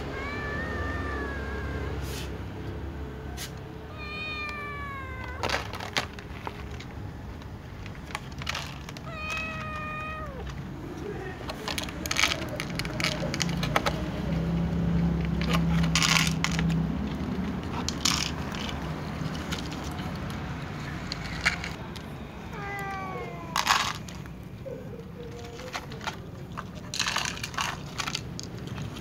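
Hungry cats meowing to be fed: about four drawn-out meows, each falling in pitch, spread through the stretch. Between them come scattered sharp clicks and rattles as food is handled.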